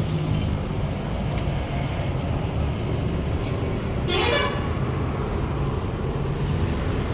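Steady low rumble of road traffic, with a vehicle horn giving one short honk about four seconds in.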